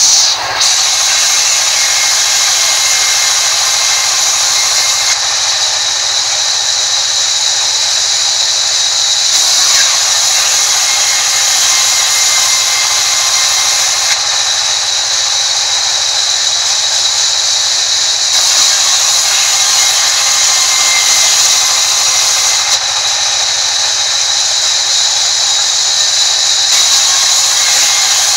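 Large sawmill band saw running and ripping a wooden board lengthwise: a loud, steady, high-pitched whine of the blade cutting, with a short knock right at the start.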